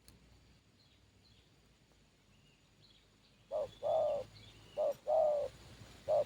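Spotted dove cooing, starting about three and a half seconds in: two coos and the start of a third, each a short note followed by a longer one, about every second and a half. Faint chirps of small birds come before the cooing.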